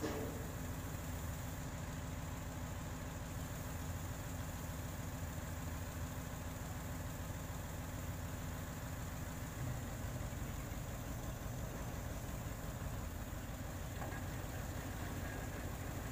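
Boom truck's diesel engine running steadily at idle while the truck-mounted crane is worked.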